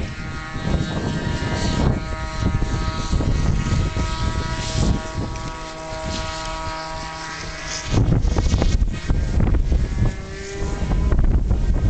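Radio-controlled model aeroplane's engine and propeller running in flight, its note holding steady with slight shifts in pitch. Gusts of wind buffet the microphone with a heavy rumble about eight seconds in and again near the end.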